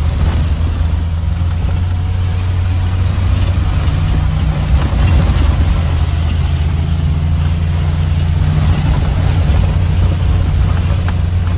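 Maruti Gypsy's engine running steadily under way, heard from inside the cabin, as the jeep drives through shallow floodwater with water spraying against the windscreen and body.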